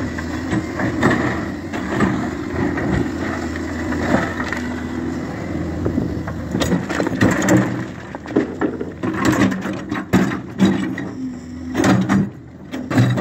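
Hyundai 140W wheeled excavator's diesel engine running, then broken rock pouring from its bucket into a steel truck bed: from about halfway through, a rapid irregular run of bangs and clatters as stones hit the metal.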